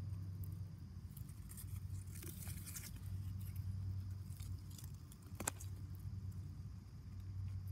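Faint rustling and scraping of a handheld phone rubbing against a shirt and grass, with one sharp click about five and a half seconds in, over a low steady hum.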